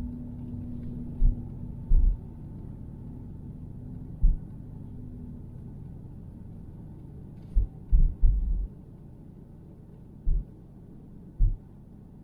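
Steady low rumble of a car on the move, with a low hum that fades out about five seconds in. About eight dull low thumps come at irregular moments, several in quick succession around the eight-second mark.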